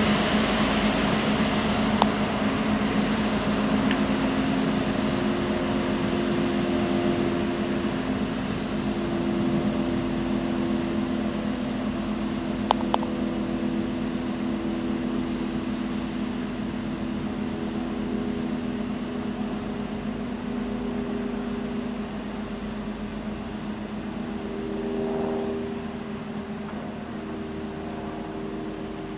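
Diesel locomotive engine running steadily as it slowly moves an Aqua Track rail-cleaning car, with high-pressure water jets hissing onto the rails to wash off leaf residue. The sound slowly fades as the train pulls away, with two or three sharp clicks.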